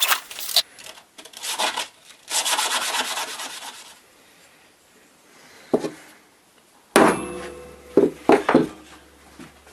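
Wood being rubbed or rasped by hand in two strokes, then several sharp knocks of wood and tools being handled, one with a brief metallic ring. A loud steady machine noise cuts off about half a second in.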